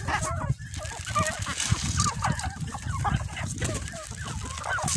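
Chickens clucking from a feeding flock, with many short calls overlapping.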